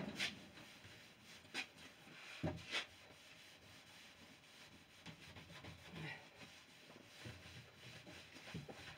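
A cloth buffing a freshly waxed stripped pine door, a faint rubbing hiss from the strokes, with a few light knocks in the first three seconds.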